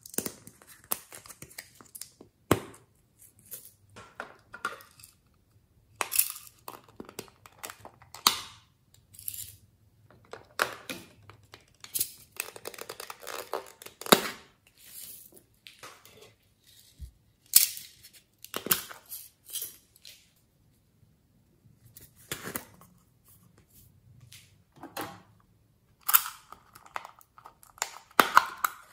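Hard plastic toy cases and a makeup palette handled and opened by hand: irregular clicks, snaps and taps of plastic, with short stretches of rustling between.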